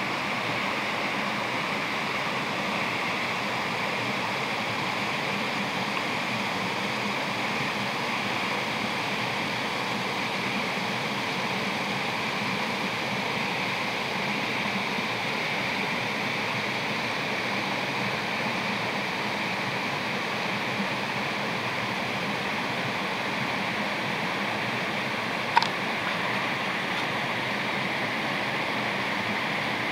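A small woodland stream rushing steadily over rocks and little cascades. A single sharp click sounds once near the end.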